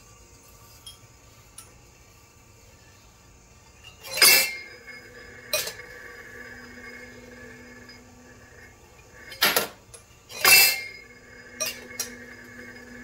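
Brass .577 Martini-Henry cases clanking against the metal of an EP 2.0 brass annealer as they are fed into its turning wheel and drop into its stainless steel pan. There are several sharp metallic clanks, with the louder ones at about four seconds and around ten seconds, each followed by a ringing tone that lasts a couple of seconds. A faint steady machine hum runs beneath.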